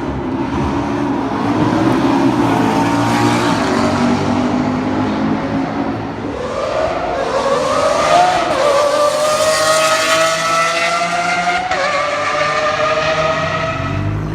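Supercar engine accelerating hard, its pitch rising steadily and dropping back at two upshifts, about eight and a half and twelve seconds in.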